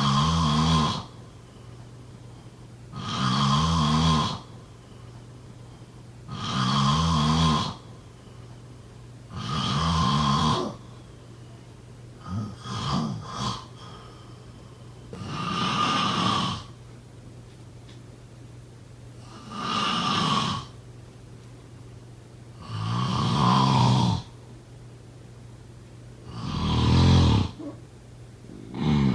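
A person snoring in a steady rhythm, one snore about every three and a half seconds. About halfway through, one snore breaks into three short choppy snorts.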